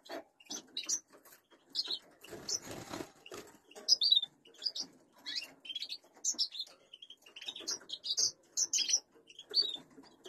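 Small cage finches chirping in short, high, scattered calls, with a brief rustling noise about two and a half seconds in.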